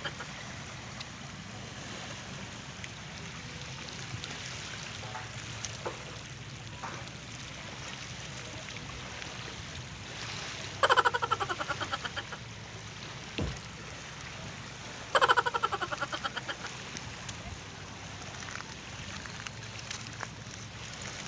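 Small waves lapping and trickling over a pebble and rock shoreline, with a steady low background rumble. Twice, about 11 and 15 seconds in, a loud call of rapid notes falling in pitch sounds for about a second, and a single thump comes between them.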